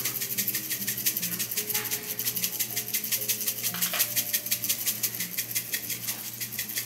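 A shaker of red pepper chili flakes being shaken rapidly, a fast steady rattle of flakes against the container, with faint background music underneath.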